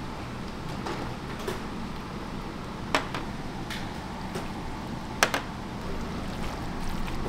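Kitchen work sounds: a few sharp clacks and knocks, the loudest about three and five seconds in, over a steady low hum.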